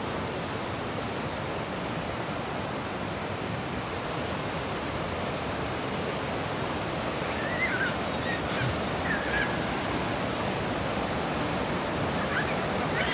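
Waterfall rushing steadily, a continuous even roar of falling water; the falls are running full after heavy rains.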